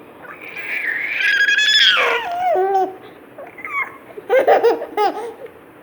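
A baby's long high-pitched squeal that drops sharply in pitch about two seconds in, followed by a few short giggles.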